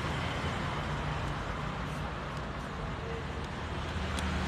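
Steady background rumble and hiss with no clear single source, and a faint click about four seconds in.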